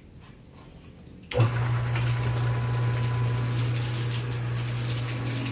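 Water from a garden hose suddenly gushes on about a second in and sprays steadily onto the concrete floor of a pig pen, washing the piglets. Under the spray runs a steady low hum from the electric water pump that feeds the hose.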